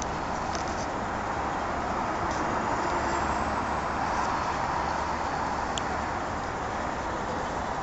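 A steady rushing noise with a few faint clicks.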